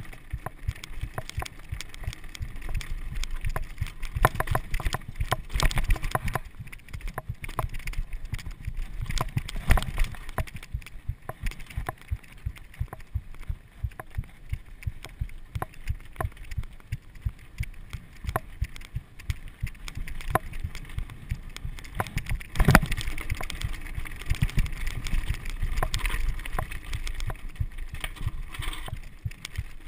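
Mountain bike rolling fast over loose rocky singletrack: a steady rumble of tyres on gravel with constant irregular rattling and knocking from the bike, and one heavy hit about three-quarters of the way through.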